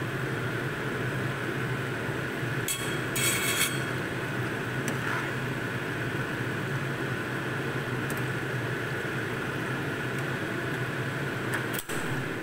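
Long beans deep-frying in a wok of hot oil, a steady sizzling hiss. A wire spider strainer clinks against the wok a few times about three seconds in, and there is a single knock near the end.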